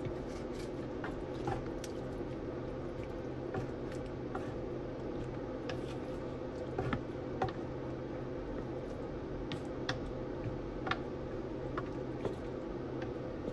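Pork belly adobo cooking down in a pan, a steady low hum under sparse, irregular pops and crackles as the liquid reduces.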